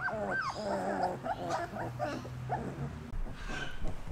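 Three-week-old German wirehaired pointer puppies whimpering and yipping in short, high squeals that rise and fall. The calls come thick and fast at first and thin out after about a second and a half.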